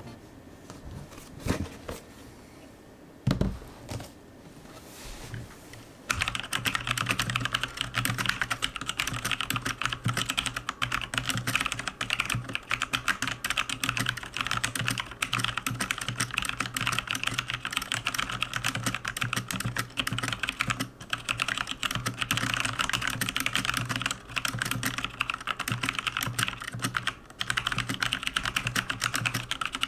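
Typing on a Logitech G413 Carbon mechanical keyboard with Romer-G Tactile switches: a few separate key presses over the first several seconds, then fast, continuous typing from about six seconds in.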